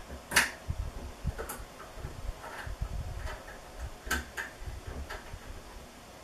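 Irregular small metallic clicks and taps as M5 socket head cap screws are worked into a stepper motor mount by hand, the sharpest about half a second in, the others scattered and softer.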